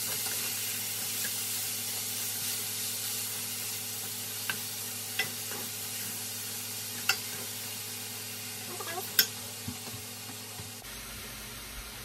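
Ground beef sizzling in oil in a stainless steel frying pan while a wooden spoon stirs it, with about four sharp knocks of the spoon against the pan, the loudest near the end.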